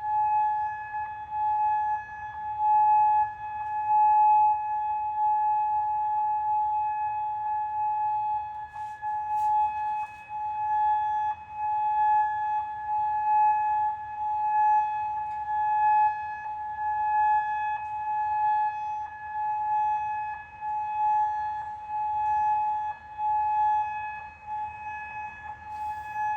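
Alarm siren sounding one steady, unbroken high tone that does not rise or fall in pitch, its loudness swelling and fading every second or two.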